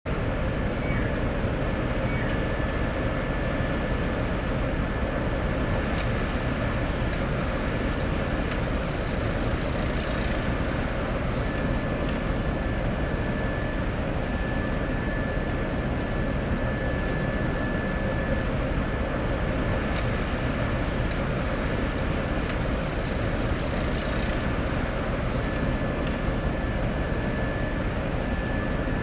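Steady rumble of a New Shuttle rubber-tyred people-mover train running slowly past on its elevated guideway, with a thin high whine that comes and goes.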